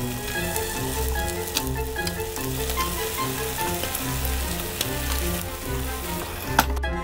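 Puff-pastry scrolls sizzling in the hot wells of a pie maker, with a few clicks of a wooden spoon against the pie plates as they are lifted out, the sharpest near the end. Background music plays throughout.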